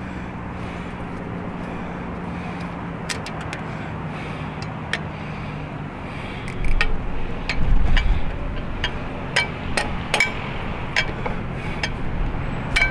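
Metal hand tools clinking and knocking on engine parts, a string of sharp ringing clicks with a heavier thump about seven seconds in, over a steady low hum.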